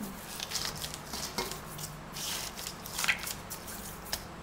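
Hands squeezing and kneading coarse salt into whole gutted tilapia in a stainless steel bowl: soft wet squelching and gritty rubbing, with a couple of firmer squeezes about a second and a half in and again about three seconds in. This is the salting step for pla ra, working the salt into the fish's flesh.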